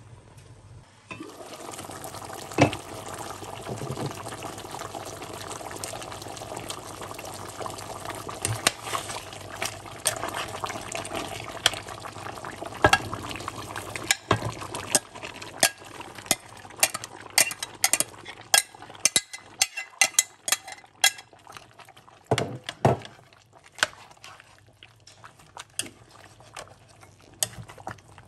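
Pot of tomato goat stew bubbling at a simmer. From about halfway, a run of sharp clicks and knocks as chopped onion and green pepper are tipped into the pot and stirred through the stew.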